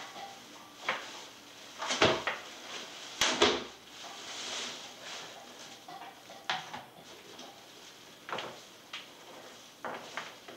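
Plastic packaging bag rustling and crinkling as it is pulled off a food dehydrator, with a scattering of sharp knocks and clatters from the dehydrator's stacked trays being handled on a countertop, the loudest about two and three seconds in.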